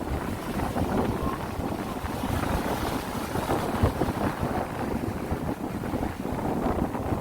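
Wind gusting across the microphone with a low rumble, over the sound of sea waves washing in; a wash of surf hiss swells in the middle.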